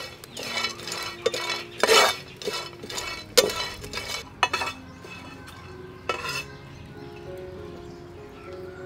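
A metal spoon scraping and clinking against a black wok as small dried shrimp are stirred and toasted in the dry pan. There is a quick run of strokes over the first four seconds or so and one more at about six seconds, then it goes quieter.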